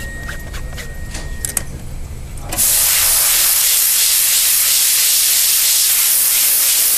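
A few light taps of a spotting tool on the gown's fabric, then about two and a half seconds in a spotting-board steam gun starts a loud, steady hiss that runs on, flushing the pre-spotting chemicals out of the stained train.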